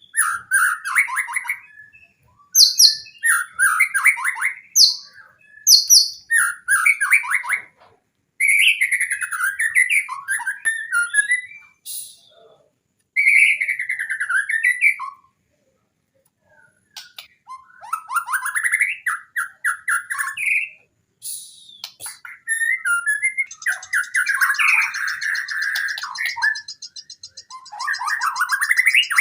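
White-rumped shama (murai batu) singing in bursts of varied phrases, with rattling trills, whistled glides and mimicked calls of other birds, separated by short pauses. In the last few seconds a high, continuous buzzing runs beneath the song.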